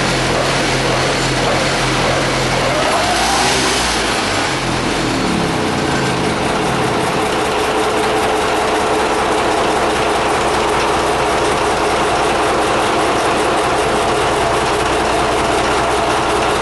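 Caterpillar D342 diesel and its gasoline pony starting motor running during a pony-motor start. A steady pitched engine drone sweeps in pitch about three to five seconds in, then gives way to a denser, rougher steady running sound.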